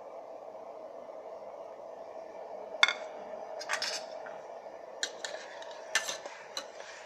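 Metal spoon clinking and scraping against the pot of an electric kettle while chicken is added to the boiling water. There is a steady hum at first, then a string of sharp, irregular clinks starting about three seconds in, the first the loudest.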